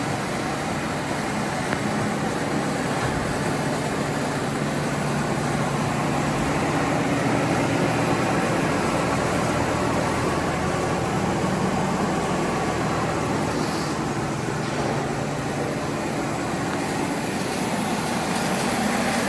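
36-inch Timesaver wide-belt grinder running on 440-volt power: a steady mechanical hum of its electric drive motors.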